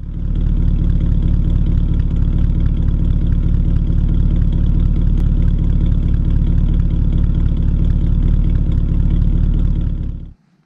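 A freshly restored 1937 Terraplane Six's inline-six flathead engine running at a steady idle, heard close at the tailpipe. The sound cuts off suddenly near the end.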